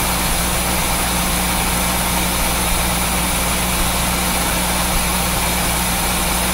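Original 1976 Chevy small-block V8 of a C3 Corvette idling steadily at operating temperature, heard close to the tailpipe. Once warm it smokes from the exhaust, which the mechanic takes for piston ring trouble.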